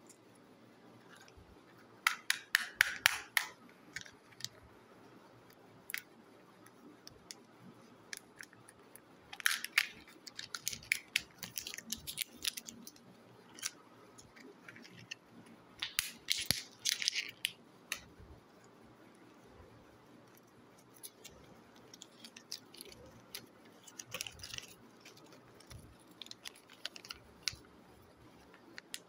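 Kinder Joy plastic egg capsules and their wrapping being handled and opened by hand, giving bursts of crackling clicks and rustling. There are three louder bursts, about two seconds in, about ten seconds in and about sixteen seconds in, with sparser, quieter handling and paper rustle later.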